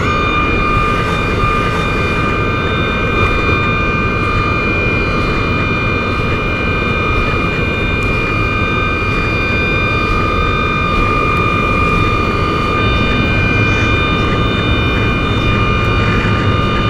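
A CNC mill spindle running a carbide reamer through 4140 alloy steel, with high-pressure through-tool coolant spraying. It makes a steady whine of several held tones over a constant hiss of coolant.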